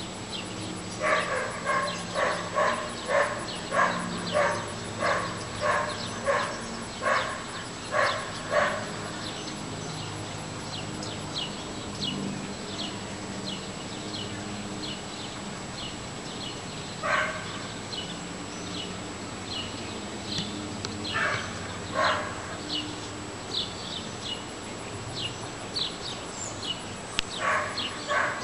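A dog barking: a run of about fifteen short barks at roughly two a second, then only a few single barks now and then.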